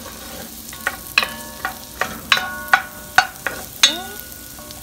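Celery and onion sizzling in melted butter in a cast-iron Dutch oven while a wooden spatula stirs them. The spatula knocks against the pot repeatedly, and each sharp knock leaves the pot ringing briefly.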